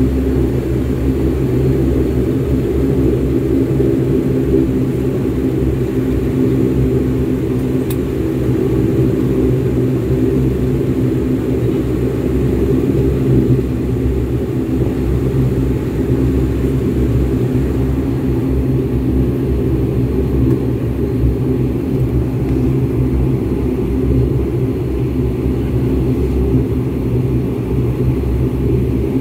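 An airliner's engines heard from inside the cabin while taxiing: a steady drone with several steady low hums that holds at one level.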